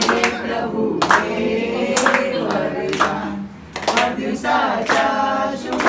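A group of voices singing together, with hands clapping along in time about once a second.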